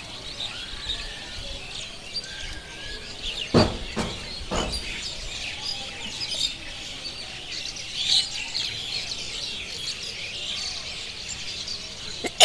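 Many small birds chirping and calling in a continuous chorus. Two short, sudden bursts about a second apart stand out a few seconds in, the first being the loudest sound.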